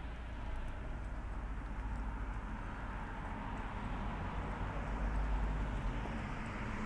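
Footsteps on a frosty pavement over a steady rumble of road traffic that grows louder in the second half.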